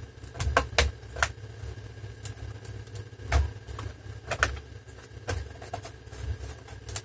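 Plastic retaining clips of a Dell Inspiron 17 5767's bottom panel clicking and snapping as the panel is wiggled loose by hand: about ten irregular, sharp clicks over a steady low hum.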